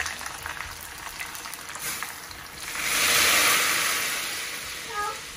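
A tadka of hot oil, fried onions and whole spices poured into simmering daal, sizzling loudly. The hiss swells about two and a half seconds in and dies away over the next two seconds.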